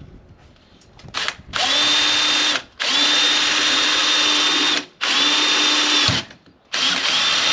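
Cordless drill boring holes into a waste water tank: a brief blip, then four runs of a steady whine lasting a second or two each, with short stops between.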